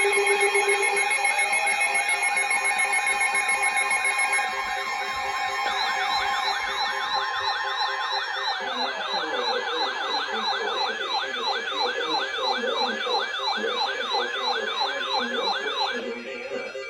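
Electronic siren-type alarm: several steady tones sounding together for about four seconds, then a fast yelp rising and falling about two to three times a second, which cuts off suddenly near the end.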